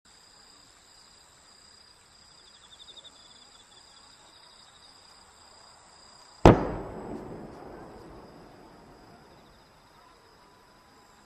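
A single sharp firework bang about six and a half seconds in, its echo rolling away over the next two seconds, over a faint steady hiss.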